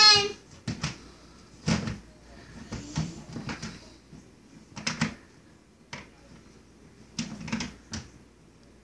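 Irregular knocks and scuffs from a plastic storage bin as a child shifts and leans about inside it, some coming in quick pairs.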